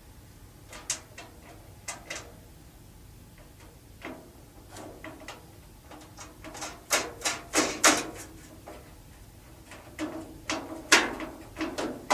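Scattered clicks, taps and clinks of sheet-metal range hood parts and screws being handled and fitted, sparse at first and thickest about seven to eight seconds in and again near the end.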